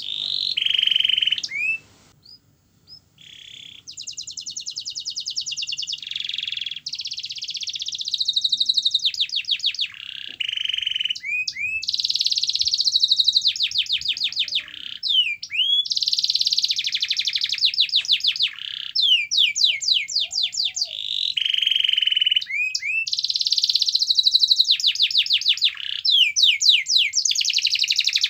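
Domestic canary singing a long song of rapid trills and rolls, one quick repeated note after another in phrase after phrase, with a short pause about two seconds in.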